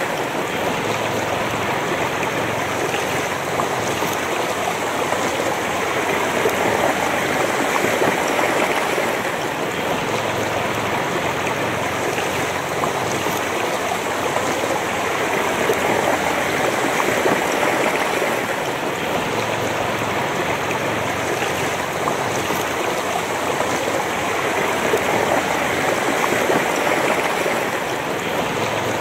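A shallow, rocky river flowing and rippling over stones: a steady rush of running water.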